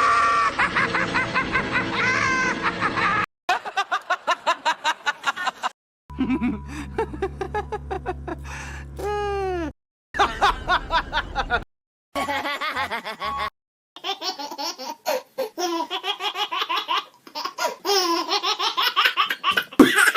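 A run of recorded laugh sound effects played back to back: about seven different laughs, each a few seconds of quick rhythmic ha-ha pulses, cut off abruptly with brief silences between them.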